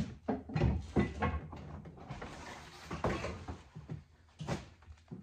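Axes and handles knocking against the plywood walls and floor of a wooden shipping crate as they are rummaged and lifted out: a quick run of wooden knocks in the first second and a half, a stretch of rustling about two seconds in, and a few more knocks later.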